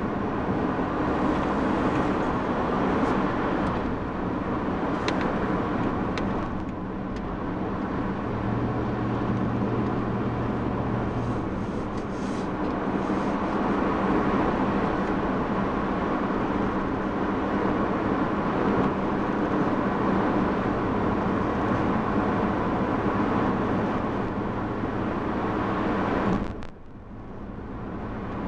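Steady rumble and hiss of road travel, with a low hum under it; it drops away suddenly near the end.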